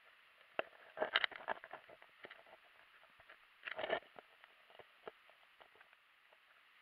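Underwater clicks and knocks heard through a submerged action camera on a stony riverbed: two quick clusters, about a second in and again near four seconds, with single clicks between, over a steady hiss.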